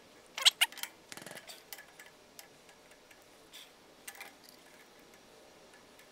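Metal clicks and clinks of a chuck key tightening one jaw of a four-jaw lathe chuck down onto an aluminum shim: a cluster of sharp clicks in the first second and a half, then a few faint ticks.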